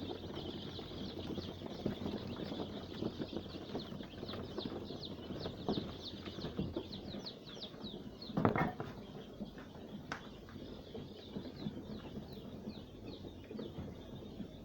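A crowd of five-day-old layer chicks peeping steadily in quick, high, falling chirps, over rustling and fluttering of the chicks moving about, with one louder scuffle about eight and a half seconds in.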